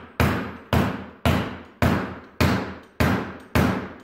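Repeated hammer blows at a steady pace of about two a second, each ringing out briefly, struck on a homemade plywood outboard stand with steel pipe posts.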